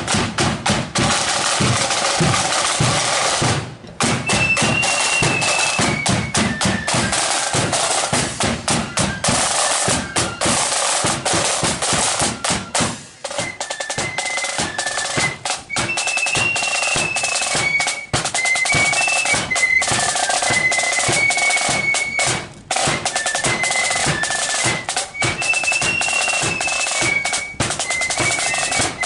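Marching flute band playing. Snare and bass drums play alone at first; after a short break about four seconds in, the flutes come in with a high melody over the drums.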